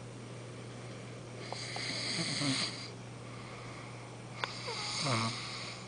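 A sleeping man snoring: two rattling snores about two and a half seconds apart, each with a breathy hiss, over a steady low hum.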